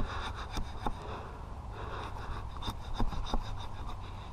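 A stick of wood drawn down against the edge of an axe blade fixed in a log, shaving off tinder strips: faint scraping with a few light ticks.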